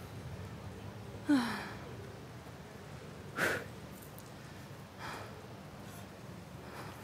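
A woman breathing hard from exertion while struggling with a dropped heavy motorcycle on gravel. There are three short heavy breaths: a sigh with a brief falling moan about a second in, the loudest sharp breath about three and a half seconds in, and a softer one about five seconds in.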